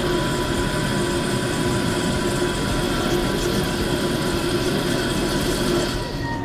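CNC lathe turning a metal part under flood coolant: a steady machine hum from the spindle and cut, with a thin high whine that dips slightly near the end.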